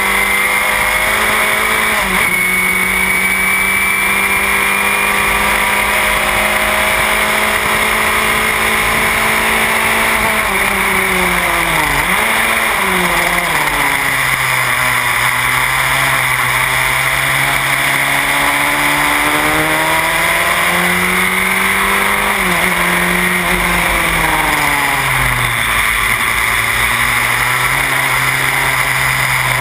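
Onboard sound of a Van Diemen Formula Renault race car's engine at speed: a steady high note that drops sharply about twelve seconds in as the car slows, runs lower, climbs again, and dips twice more in the later seconds. The driver feels something is not right with the car and that it cannot get up to speed.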